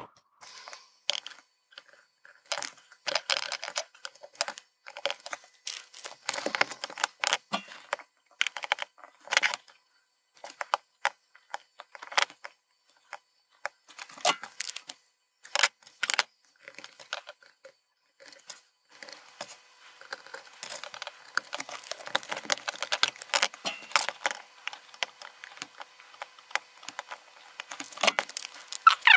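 Hands handling a printed circuit board, loose plastic LEDs and masking tape on a desk: scattered clicks, taps and rattles, coming thicker in the last ten seconds or so.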